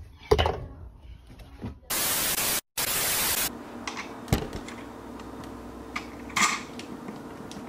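Clothes rustling with a few clicks and knocks as laundry is pushed into a top-load washing machine drum. About two seconds in comes a loud burst of even hiss, broken by a split-second drop to silence and lasting about a second and a half, followed by a faint steady hum with a few light clicks.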